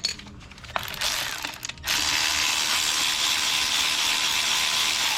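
Handheld power tool running steadily for about three seconds, spinning out a fastener that had just been broken loose during an engine teardown. A brief burst of the tool comes about a second in, before the long run.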